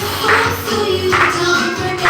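Music with singing: a children's song with voices over a backing track.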